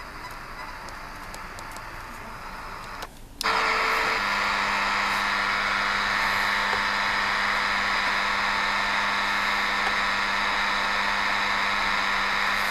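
Shortwave receiver in SSB mode giving out steady hiss with faint whistles, then muting briefly about three seconds in as it is retuned from the 10-metre band to 3444 kHz. After that comes a louder steady buzzing noise with a low hum tone, the kind of buzz the uploader reports across the whole span from about 3 to 12 MHz.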